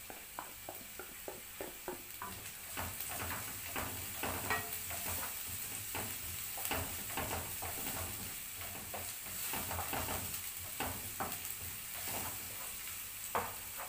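Chopped green bell pepper tipped into onion frying in olive oil in a stone-coated frying pan, sizzling, then stirred with a wooden spatula: a steady sizzle under many short scrapes and knocks against the pan.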